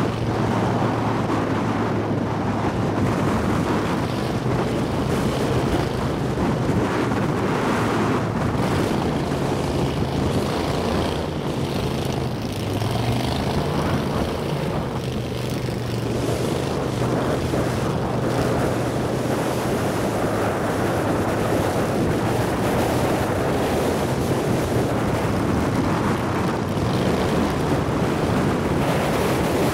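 A boat's outboard motor running steadily at speed, its pitch shifting briefly about halfway through, with wind buffeting the microphone and water rushing past the hull.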